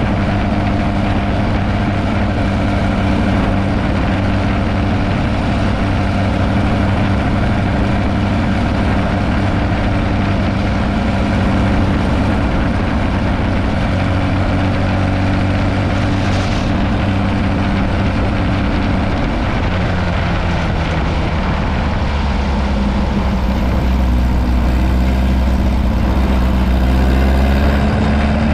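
Dune buggy engine running steadily as the buggy drives along, heard from down on its frame. A low rumble grows louder over the last few seconds and the engine's pitch begins to rise near the end.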